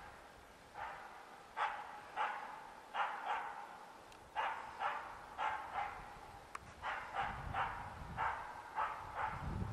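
Red spitz-type hunting dog giving a steady run of sharp barks, about two a second: the bay (ståndskall) of a bird dog holding a treed capercaillie for the hunter.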